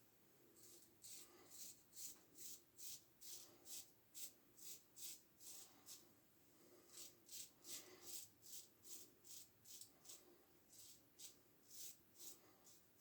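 Faint, quick strokes of a Gem push-button single-edge razor scraping through lathered stubble, about two or three strokes a second, with short pauses about six seconds in and again around ten seconds.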